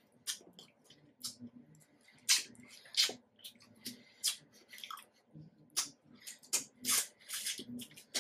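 Close-miked wet chewing of juicy fruit: irregular smacks and squishes, several a second at times.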